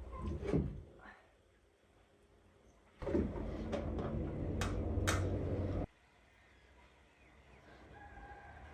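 A rooster crowing: one loud call of almost three seconds, starting about three seconds in.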